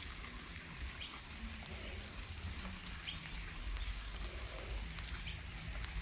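Steady rain falling, with a few short, faint chirps heard through it.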